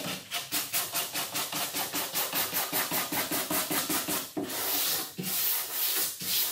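Hand sanding block with sandpaper rubbed back and forth across a wooden tabletop: quick, short strokes at about four to five a second, then two longer, slower strokes near the end.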